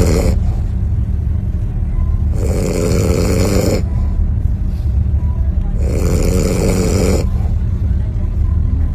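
Very loud open-mouth snoring: long harsh snores about every three and a half seconds, the tail of one at the start and two full ones after, over a steady low rumble.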